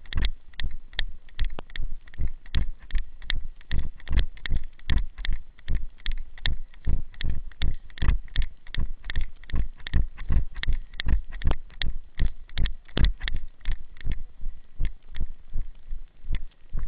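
Footsteps of the person carrying the camera walking briskly over a dirt woodland trail: a steady rhythm of about three dull thumps a second, each step jolting the microphone.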